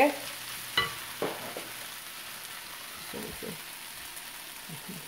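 Vegetables frying in a skillet with a steady soft sizzle as grated carrots are tipped in and stirred with a wooden spoon. A couple of light knocks come about a second in.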